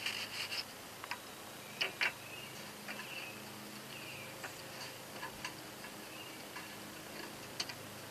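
A handful of sharp little clicks and taps from a lawn mower engine's dipstick being wiped and pushed back into its filler tube while the oil level is checked, mostly in the first two seconds with one more near the end.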